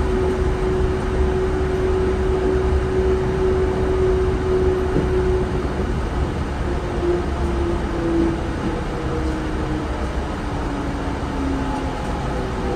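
Yurikamome 7500-series rubber-tyred automated guideway train running, with a steady low drone under a motor whine that holds one pitch for the first half and then falls in pitch as the train slows.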